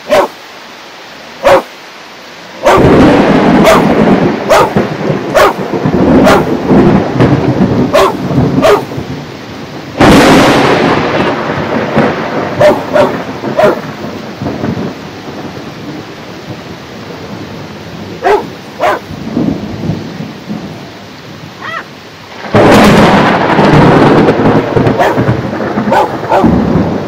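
Thunderstorm: three loud claps of thunder, about 3, 10 and 22 seconds in, each breaking suddenly and rumbling on for several seconds, over steady heavy rain.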